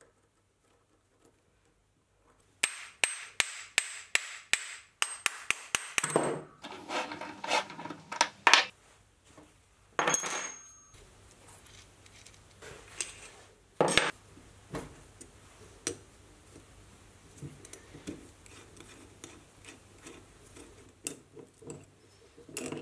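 Steel tailstock parts and hex keys being handled while a mini lathe's cast-iron tailstock is taken apart: a quick run of sharp metallic clicks, about four a second, then scattered clinks and knocks, with one ringing metal clink about ten seconds in.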